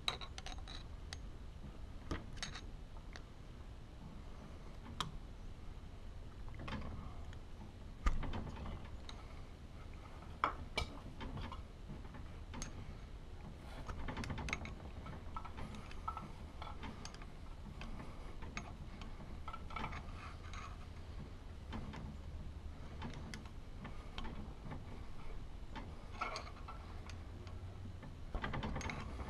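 Light, irregular metal clicks and scrapes of a steel packing tool pushing greased rope packing into the packing bore of a high-pressure hot tapping machine, with a sharper knock about eight seconds in.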